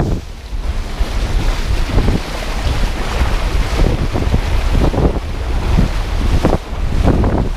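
Wind buffeting the microphone over water rushing and splashing under a windsurf board planing across choppy sea, with irregular slaps as the board hits the chop.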